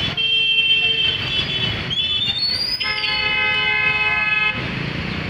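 Vehicle horns honking in road traffic: one horn sounds for about a second and a half at the start, and a longer held horn blast comes about three seconds in, over steady traffic noise.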